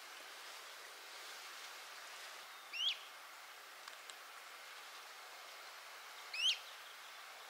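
A small bird calling twice, about three and a half seconds apart, each a short, high, quick phrase of sharply sliding notes, over a steady faint outdoor hiss.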